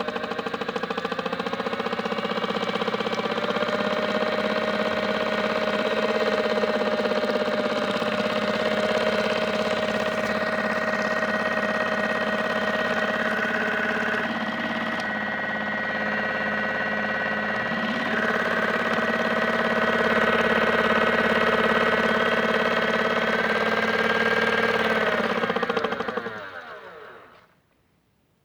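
Modified Miele W1 toy washing machine on its spin: the drum's small electric motor whines steadily at speed, then winds down and stops near the end.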